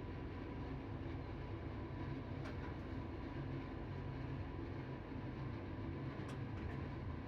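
Fujitec elevator car running, a steady low hum and rumble with a faint steady whine, and two light ticks along the way.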